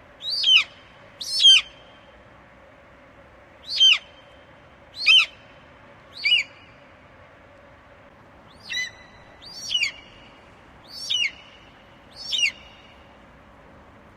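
Eagle calling: a series of nine short, high cries, each sliding downward in pitch, about one every second or two.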